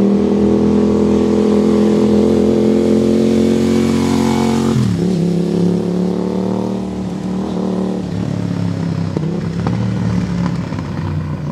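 Aprilia 660 parallel-twin motorcycle engine running at a steady high pitch through its exhaust. About five seconds in the pitch drops sharply, then it runs on steadily at lower revs.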